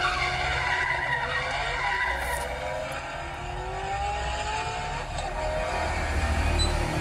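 Race-car sound effects of a car drifting: engine rumble under long tyre squeals that glide up and down in pitch.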